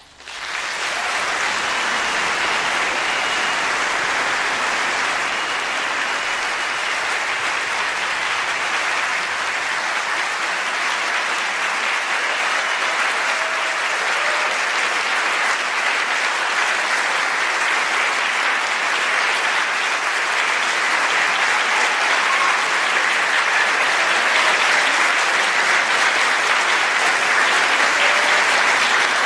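Audience applauding, breaking out as the orchestra's final chord dies away and holding steady, a little louder near the end.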